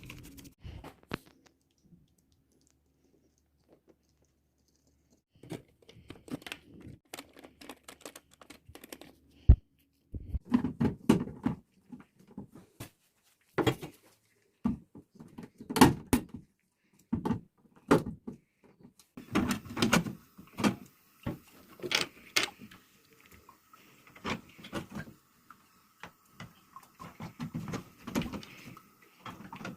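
Irregular clicks, knocks and rattles of hard parts being handled, typical of a toilet cistern's flush mechanism being worked on. A faint steady hiss joins in about two-thirds of the way through.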